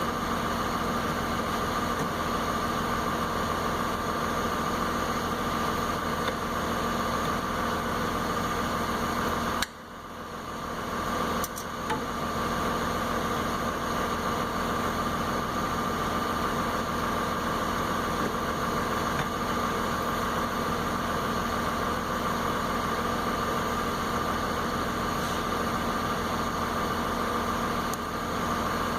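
Steady mechanical hum with a constant whine, dipping briefly about ten seconds in and then running on unchanged.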